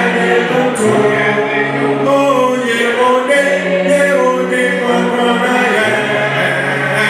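A choir singing a hymn a cappella in harmony, voices only with no instruments, several parts holding and changing notes together.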